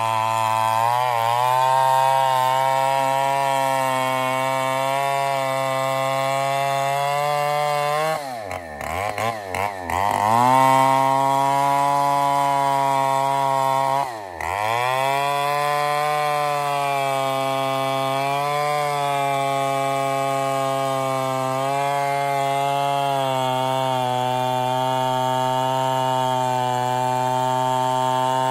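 Two-stroke chainsaw running at high speed, cutting trembesi (rain tree) wood with a steady high engine note. About eight seconds in its pitch drops and recovers several times in quick succession, and once more near fourteen seconds.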